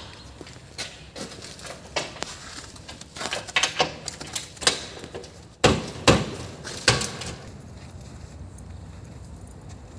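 Scattered sharp knocks and clicks, with a cluster of the loudest ones around six to seven seconds in, then only steady background noise.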